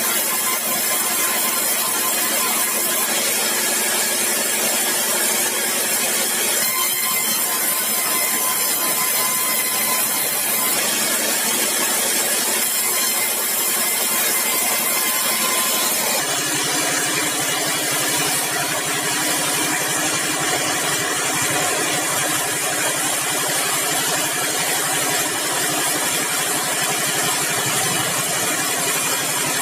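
Sawmill machinery running steadily with a mechanical hum. About 16 seconds in the sound shifts and becomes heavier and lower.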